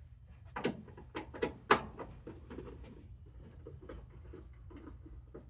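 Tail light housing of a Chevy Express van being tugged loose by hand: a few sharp clicks and knocks in the first two seconds, the loudest a little under two seconds in, then fainter small clicks as it works free.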